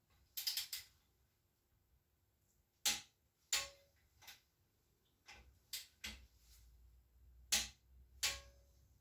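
Sharp metallic clicks of a torque wrench and its ratchet as the cylinder head bolts of a Honda K20A2 engine are torqued down in stages. A quick run of ratchet clicks comes early. Loud single clicks follow at intervals, two of them with a brief ringing clink.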